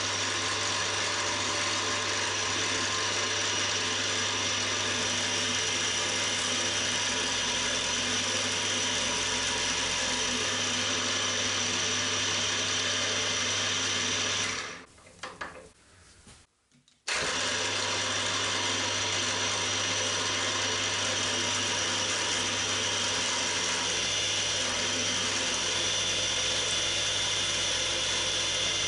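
Cormak ZX 7045 gear-head mill-drill spindle running steadily at about 1600 RPM while a spot drill and then a twist drill cut into an aluminium plate. The machine sound cuts out suddenly about halfway through, then picks up again after a couple of seconds.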